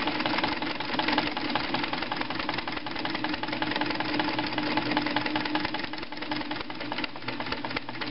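Pfaff 139 sewing machine running fast and steadily, darning with the needle going up and down: a steady motor hum under a rapid, even clatter of needle strokes.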